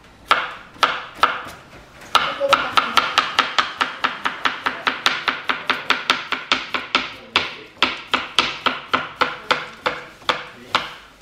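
Kitchen knife slicing a chayote (güisquil) into rounds on a plastic cutting board: a few spaced cuts, then a steady run of sharp knife taps on the board at about three to four a second.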